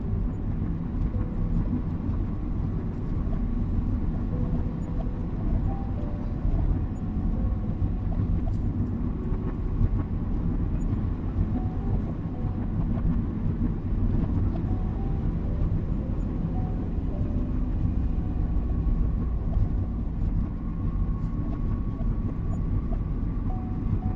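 Steady low rumble of a car driving, its engine and road noise running evenly. Faint soft melody notes sound over it.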